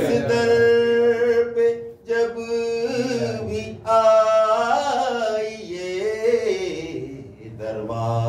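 A man singing devotional verse unaccompanied, in a chanting melody with long held notes and short breaks between phrases.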